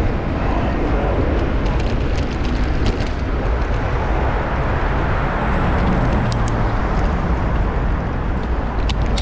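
Steady wind rumble on a bicycle-mounted action camera's microphone while riding, mixed with road traffic noise, with a few light clicks.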